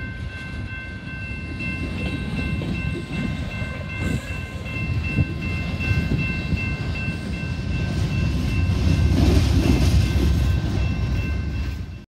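Freight train's boxcars rolling past, a steady rumble and clatter of wheels on rail that grows louder near the end. A steady high-pitched ringing of several tones runs over it.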